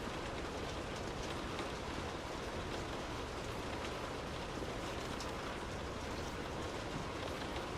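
Steady rain heard from indoors, an even hiss of rainfall with scattered drops tapping on a surface.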